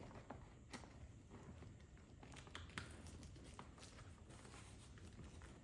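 Near silence with faint scattered clicks and rustles as a fabric seat cover is handled and pressed into place on a car seat.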